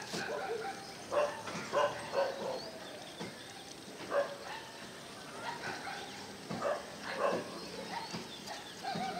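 A dog barking: a handful of short barks at irregular intervals.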